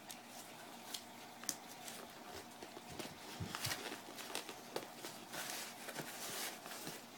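Hands rustling and pressing a paper-towel layer down into a cardboard shipping box: soft crinkling with scattered light taps, the rustle getting busier about five seconds in.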